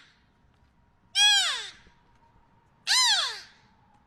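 Beluga whale calling: loud, short calls, each rising and then falling in pitch with many overtones and lasting under a second, one fading out at the start and two more about a second and about three seconds in.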